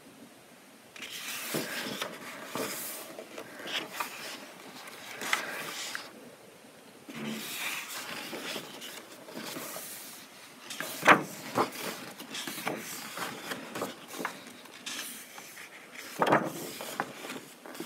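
Pages of a paperback coloring book being turned and pressed flat by hand: repeated paper rustles and flaps of medium-weight paper, with one sharp flap a little past the middle the loudest.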